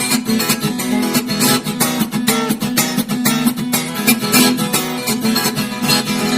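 Background music: acoustic guitar, rapidly plucked and strummed.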